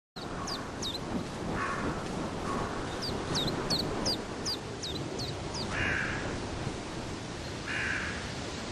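Birds calling: a run of thin, high, quickly falling whistled notes in the first half, and four harsh, raspy calls of about half a second each, the last two near the end, over a steady background hiss.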